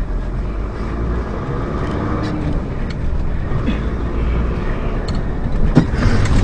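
A car driving, with steady engine and road noise, and one sharp click near the end.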